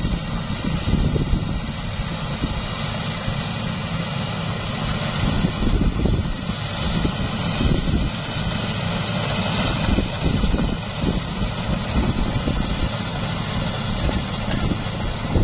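Maxxi Bimo NDR 102L rice combine harvester running steadily as it cuts paddy, a continuous engine-and-machinery drone, with irregular gusts of wind buffeting the microphone.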